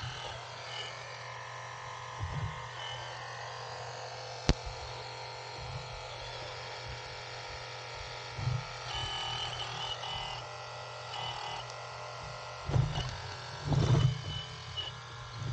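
Small electric motor and hydraulic pump of an RC hydraulic excavator whining steadily. There is a single sharp click about a third of the way in and a few low knocks near the end.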